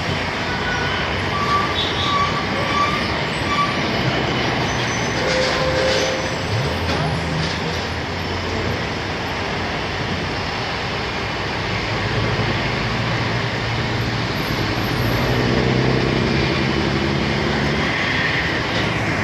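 Steady traffic noise with a vehicle engine growing louder in the second half.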